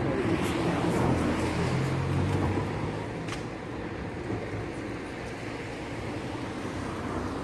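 A low, steady engine hum, loudest for the first three seconds or so and then fading into an even background rumble, with a few sharp clicks.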